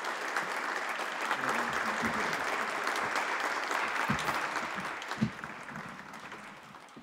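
Applause, many hands clapping, tapering off over the last couple of seconds.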